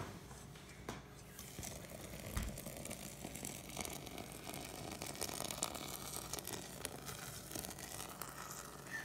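Near-boiling water poured in a thin stream into a stainless steel saucepan, splashing faintly onto a mound of egg-and-coffee-grounds mixture, with small crackles as it foams.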